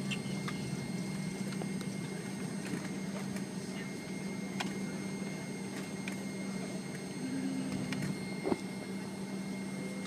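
Steady low drone inside the cabin of a McDonnell Douglas MD-88 airliner as it taxis, with scattered faint ticks and one short knock about eight and a half seconds in.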